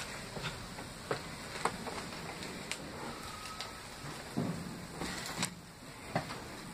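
Irregular footsteps, knocks and creaks on the debris-strewn wooden floor of an abandoned train carriage, with a short squeak about three seconds in and a duller thud a little later.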